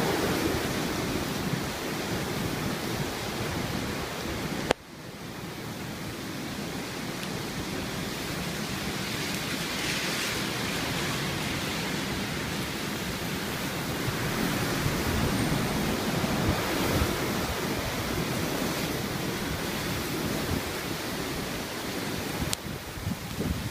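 Strong typhoon wind and rain, a steady rushing noise that swells and eases in gusts. About five seconds in, a sharp click comes with a sudden drop in the noise, which then builds back up.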